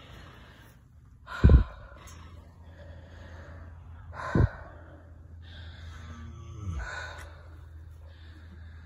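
Horses breathing hard just after a foaling: the lying mare and her newborn foal. There are two loud breaths about three seconds apart and a softer one near the end, each falling sharply in pitch, over a low steady hum.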